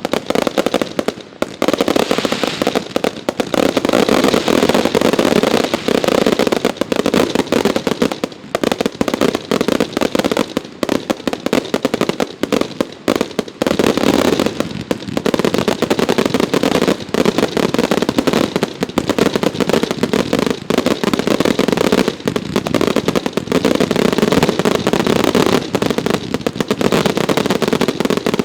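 Consumer fireworks going off in a dense, unbroken run of rapid bangs and crackle, many reports every second.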